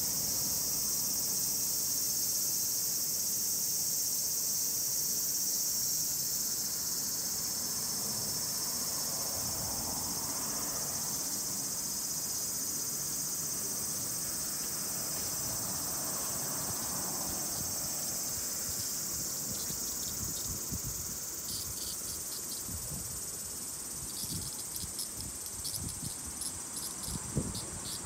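Insects singing in a steady, high-pitched chorus, with a faster pulsing chirp joining in during the last several seconds.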